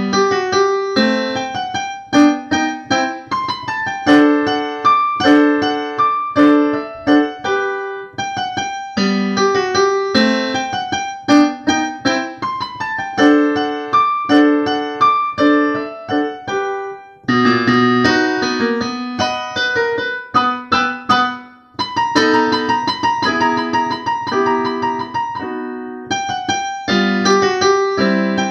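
Solo classical piano music played on a digital piano, a steady run of notes with both hands on the keys.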